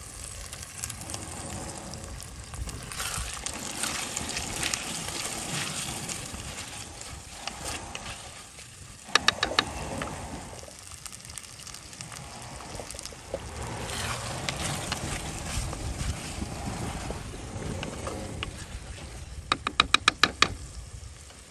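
Chicken pieces frying in masala in a clay pot, with scraping and stirring from a wooden spatula. Twice, about nine seconds in and near the end, comes a quick run of sharp, ringing taps as the spatula is knocked against the clay pot.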